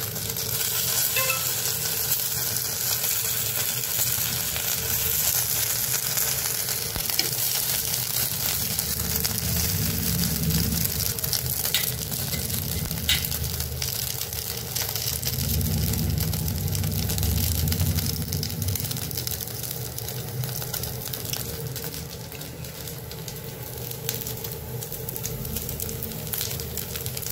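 Paniyaram batter sizzling steadily in the oiled cups of a paniyaram pan over a gas flame, as the balls fry after being turned. A couple of sharp clicks come about halfway through.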